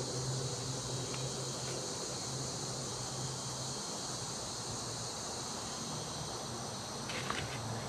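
Steady high-pitched chirping of an evening insect chorus, crickets among them. A low hum fades out about halfway through, and a few short knocks come near the end.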